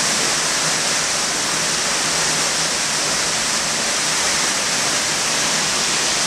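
Water gushing from a burst pipe in the ceiling and pouring down onto standing water on the floor: a steady, loud, hissing rush.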